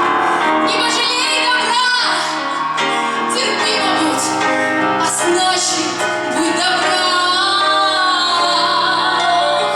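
A woman singing with vibrato over instrumental accompaniment.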